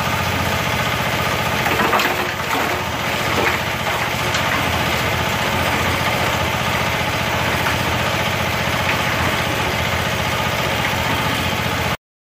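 The 12 HP engine driving a drum-built cement mixer runs steadily. Between about two and four seconds in, wet concrete and gravel slide and clatter out of the tilted drum. The sound cuts off suddenly near the end.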